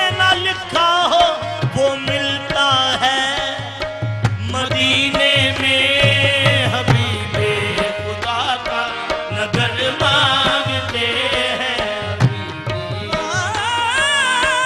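Qawwali ensemble performing a naat: lead male voices singing over held harmonium notes, with tabla strokes and hand claps keeping the rhythm.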